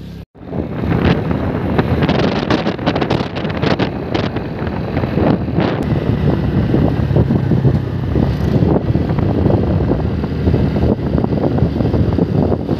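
Wind rushing and buffeting over the phone microphone on a moving scooter, with road and engine noise underneath. It starts abruptly just after a brief dropout near the start.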